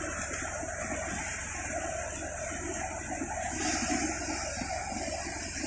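Tractor-driven paddy thresher running steadily as rice sheaves are fed through it: a continuous rushing machine noise with a low, steady hum underneath.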